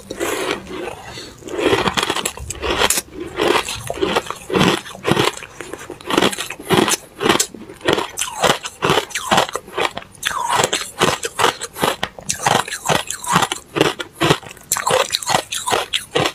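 A person biting and chewing chunks of powdery, frost-crusted freezer ice: crunch after crunch in quick succession, about two or three a second.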